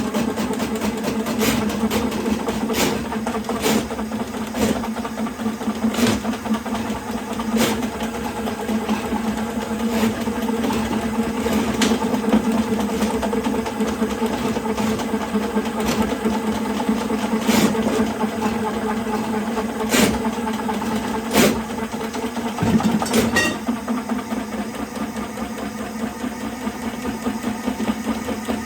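Electric drain-cleaning machine (drain snake) running steadily, with sharp knocks every second or two that stop near the end.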